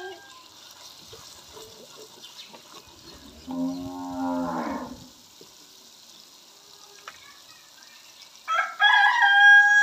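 A cow moos once, for about a second and a half, about three and a half seconds in. Near the end a rooster crows loudly, its call held and then dropping at the close. Between them there is faint sizzling and stirring of masala frying in a clay pot.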